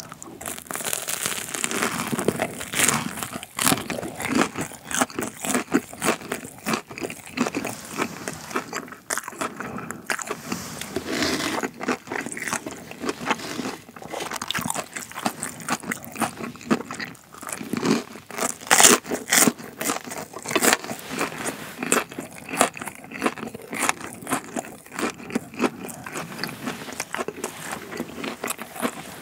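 Close-up crunching and chewing of a deep-fried Korean corn dog with a crisp breadcrumb crust: quick, irregular crackling bites and chews, loudest a little past the middle.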